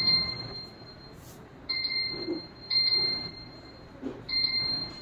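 Handheld GRBL offline CNC controller beeping at its button presses: four short, high electronic beeps, each starting sharply and lasting about half a second, roughly a second apart.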